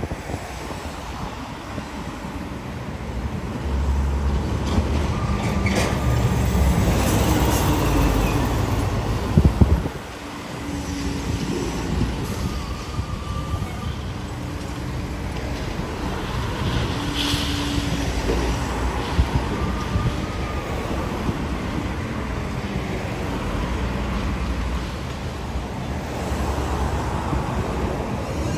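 Steady rumble of heavy machinery and road traffic: a high-reach demolition excavator working on a concrete building, with vehicles passing close by. A louder stretch drops off abruptly about ten seconds in, and brief squeals come through after it.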